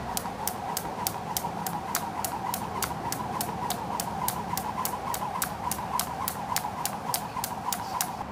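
Skipping rope slapping a tarmac path on every turn, a steady rhythm of sharp clicks about four a second, over a steady whirring hum.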